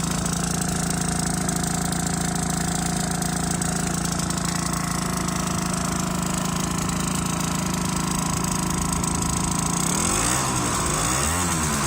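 Aprilia SR50 scooter's 50cc two-stroke Morini single idling steadily with a leaking exhaust. About ten seconds in, the throttle is blipped, giving two quick rises and falls in revs.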